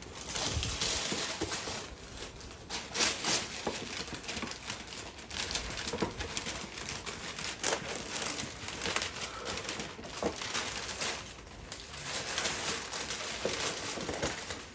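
Gift wrapping paper being torn and crumpled as a present is unwrapped: irregular rustling and crinkling with sharper crackles here and there.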